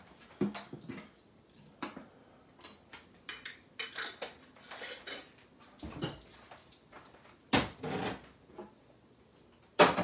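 Kitchen utensils and dishes being handled on a countertop: irregular light clinks, taps and clatters of spoons and containers, with a louder clatter about three quarters of the way through and another at the end.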